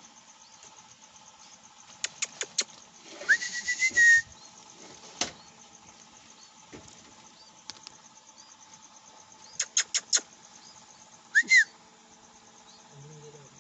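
Bulbul nestlings begging with faint, high, repeated cheeps. There are bursts of sharp clicks twice, a breathy whistled note that rises and then holds about three seconds in, and a short arched whistle near the end.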